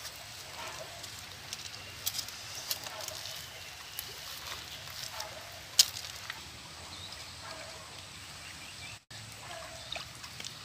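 Scattered small clicks and rustles of hands handling chilies and plastic bags, over a steady outdoor background, with one sharp click about six seconds in and a brief gap near the end.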